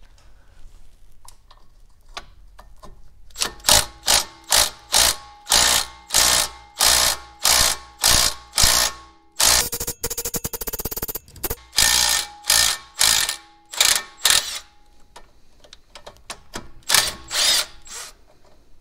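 Milwaukee cordless impact driver hammering on a rusted, stubborn bolt, run in short trigger bursts about two a second, with one unbroken run of about two seconds in the middle, then a pause and two last bursts near the end.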